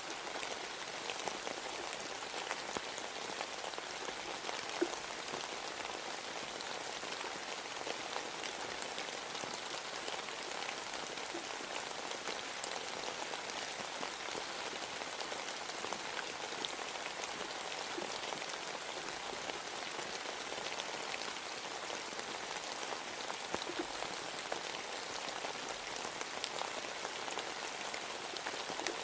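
Steady rain falling, an even hiss of drops with now and then a single sharper drop standing out.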